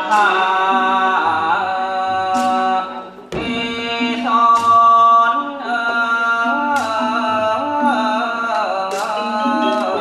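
Thai classical piphat ensemble music for a khon masked dance: a lead melody with sliding notes over mallet-percussion lines, with sharp cymbal strikes about every two seconds and low drum beats. The music drops briefly about three seconds in and comes back with a sharp stroke.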